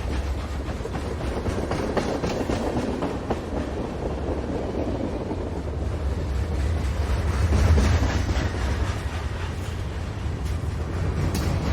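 Freight train rolling past: a steady low rumble with repeated clicks and clanks from the passing cars, loudest about eight seconds in.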